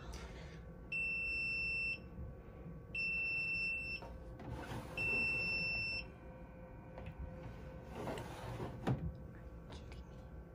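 Digital egg incubator's low-humidity alarm beeping: three one-second, high-pitched beeps two seconds apart, then stopping. The alarm signals that humidity has dropped below the set value. Plastic handling noises from the incubator's water tray being pulled out, filled and pushed back come in between and after, with a sharp click near the end.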